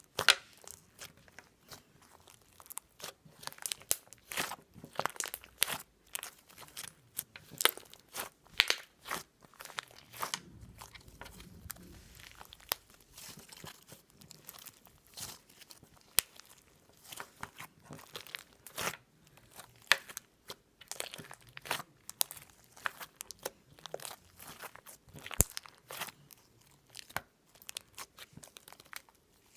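Close-up crunching and crackling: a dense, irregular run of sharp clicks and crackles.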